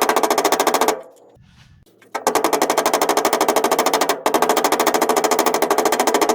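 Pneumatic air hammer rapidly hammering on the steel of a car's rear quarter panel, working a dent out. It stops about a second in for about a second, then runs on with a brief break about four seconds in.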